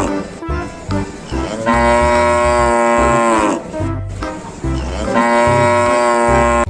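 Two long cow moos, each held for about two seconds and falling in pitch at the end, over a backing music track with a steady beat.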